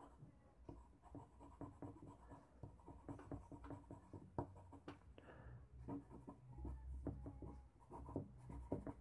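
Charcoal stick scratching over drawing paper in many quick, short shading strokes, several a second, faint.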